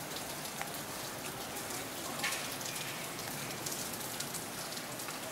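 Hailstorm pattering down: hail and rain striking the ground and plant leaves, a steady hiss dotted with many small sharp ticks.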